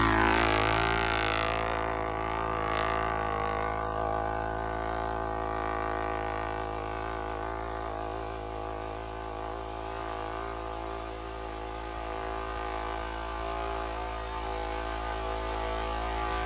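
ATV engine running at a steady speed, a constant pitched hum. It follows a louder burst that fades over the first couple of seconds.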